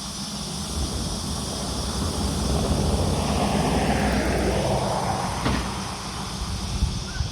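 A vehicle passing by, its engine and tyre noise swelling to a peak about four seconds in and then fading away.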